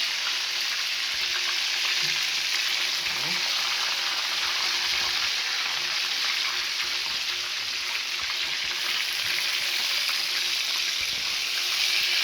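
Pieces of home-fried chicken sizzling steadily in a hot pot.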